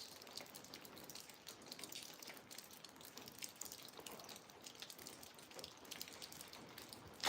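Faint, irregular patter of freezing rain and drips falling outdoors: many small scattered ticks with no steady rhythm.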